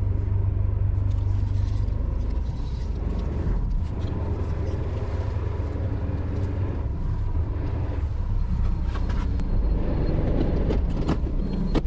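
Fishing boat's engine running steadily with the boat under way: a loud, low, continuous drone.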